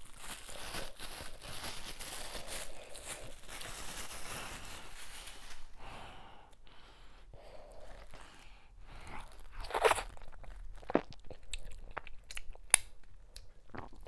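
Close-miked eating-with-the-hands sounds. First a rustling, squeezing stretch of about five seconds while a ball of fufu is handled. Then fingers work in sticky ogbono soup, with a few sharp wet clicks, the loudest about ten seconds in.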